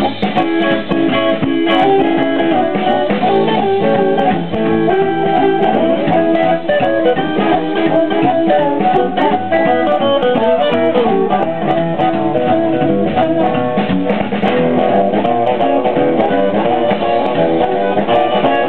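Live Chicago-style blues band playing an instrumental passage: amplified harmonica over electric guitar and drums, with no singing.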